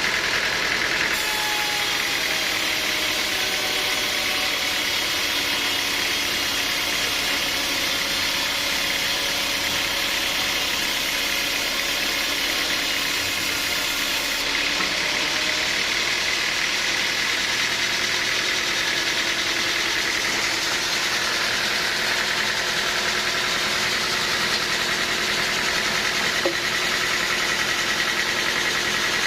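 Sawmill machinery running steadily: a dense, continuous mechanical noise with a high steady whine and faint tones that slowly sink in pitch, with one small tick near the end.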